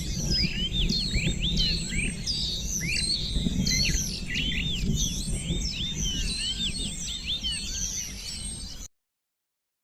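Many small birds chirping in quick, overlapping calls over a low background rumble, cutting off suddenly near the end.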